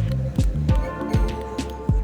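Background electronic music with a steady beat: deep kick drum hits that drop in pitch, stepping bass notes, and sharp hi-hat ticks over a held melody tone.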